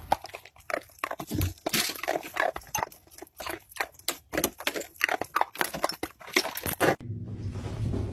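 A dog biting and crunching icicles, a quick irregular run of sharp crunches and snaps. Near the end it cuts to orchestral music.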